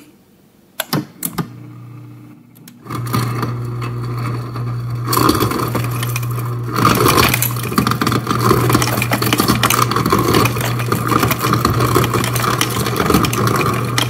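Samsung RF24R7201SR refrigerator's through-the-door ice dispenser crushing ice into a drinking glass: a steady motor hum under a dense crackle of ice being crushed and clattering into the glass. A few clicks about a second in as the glass presses the dispenser paddle; the crushing starts about three seconds in and stops near the end.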